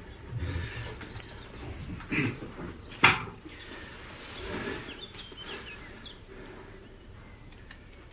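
A man moving about a room and sitting on or rising from a wooden chair: rustling and creaking, with one sharp knock about three seconds in, and a few faint squeaks later on.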